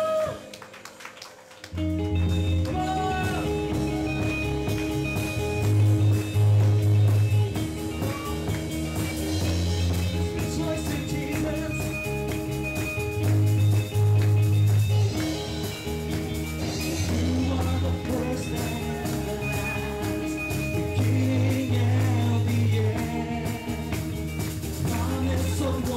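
Praise-and-worship song starting up about two seconds in, after a brief lull: band music with a deep, pulsing bass line, and a man singing over it into a microphone.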